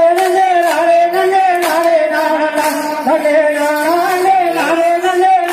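Tamil folk song for a group dance: a sung melody held in long notes over steady, evenly spaced drum beats.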